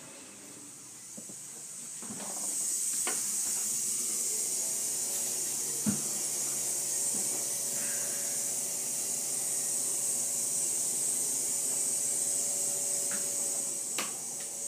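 A steady high-pitched hiss that builds up about two seconds in and then holds, with a faint steady tone beneath it and a few light knocks.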